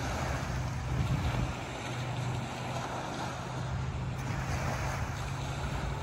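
Small waves washing onto a sandy beach with a steady surf hiss, under a low wind rumble on the microphone.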